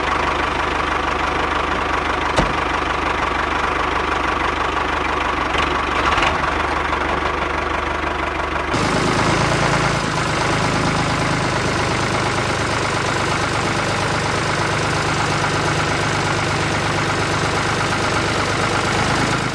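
Diesel tractor engine running steadily at idle with a low, even knocking beat. About nine seconds in the sound switches abruptly to a slightly different run of the same engine noise.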